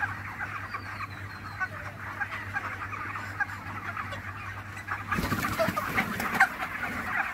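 A flock of broiler chickens clucking and peeping, many short calls overlapping, over a low steady hum. The flock gets louder about five seconds in.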